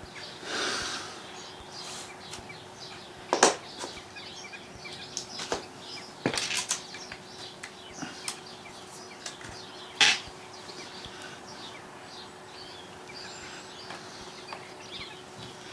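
Scattered clicks and light knocks of chainsaw parts being handled while the bar and chain are fitted, the sharpest about three seconds in and again about ten seconds in, over a faint steady hum.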